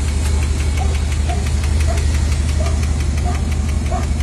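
1970 Dodge D300 pickup's engine, believed to be a 318 V8, idling steadily.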